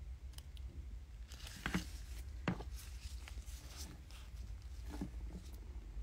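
Quiet handling noises while a nail-art inscription sticker is taken from its sheet: faint rustling and a few short, sharp clicks, over a steady low hum.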